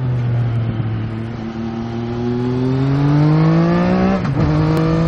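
Motorcycle engine accelerating, its pitch rising steadily, then dropping sharply about four seconds in as it shifts up a gear and pulls on at a steady pitch.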